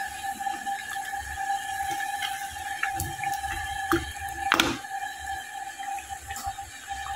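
A metal ladle clinks against a steel karahi of simmering chicken a few times, the loudest knock about four and a half seconds in. A steady high-pitched hum runs underneath.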